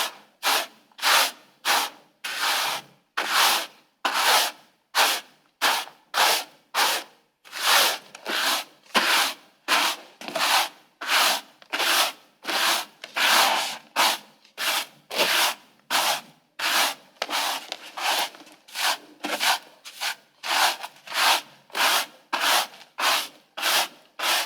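A broom sweeping a floor in short, regular strokes, about two a second, each stroke a brief bristly swish.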